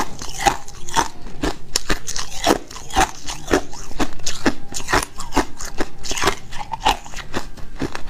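Ice chips being chewed, close to the microphone: an irregular run of sharp crunches and cracks, a few each second.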